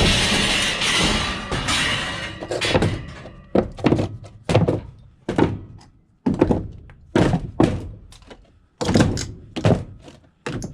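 Scrap metal pieces clattering and clanking as they are handled and dropped: a long rattling crash at the start, then a string of separate knocks at uneven spacing.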